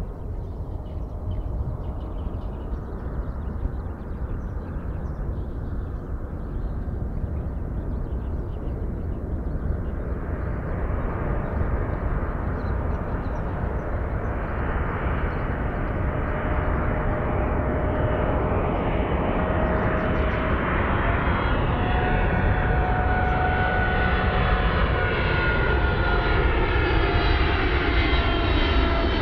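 Boeing 777-200 jet airliner on approach with its landing gear down, its engine noise growing steadily louder as it closes in. A whining tone comes through about halfway in and climbs higher as the jet nears.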